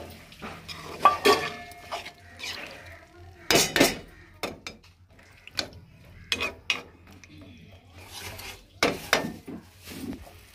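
Metal slotted spoon scraping and clinking against a non-stick kadai while stirring a thick tamarind gravy with okra, in irregular strokes, with the loudest clusters about a second in, midway and near the end.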